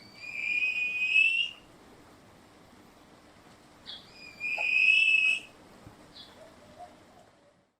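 Cassowary call: two long, high whistles, each lasting over a second and wavering slightly, the second about four seconds after the first. A few faint clicks fall between them.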